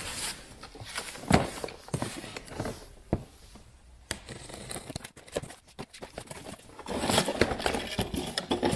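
Packing tape on a cardboard box being slit with a folding knife, then cardboard flaps scraping and rustling as the box is opened, with scattered knocks; the rustling gets busier near the end.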